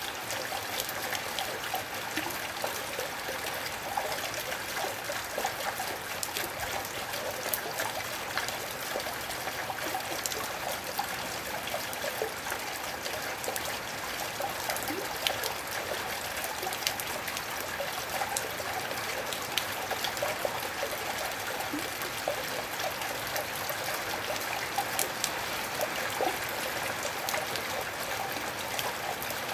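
Gentle, steady rain: a constant even hiss with many small drop ticks scattered through it.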